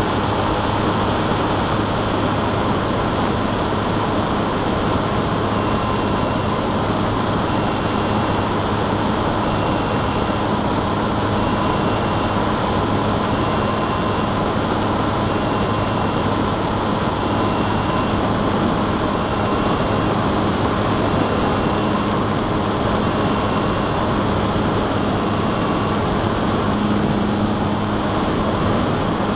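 Steady drone and rushing noise of an FPV model plane's audio feed in flight. Over it, a high electronic beep sounds eleven times, about every two seconds.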